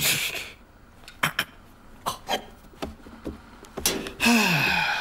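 A series of light, sharp taps spaced unevenly, then near the end a short grunt-like vocal sound falling in pitch over a hiss.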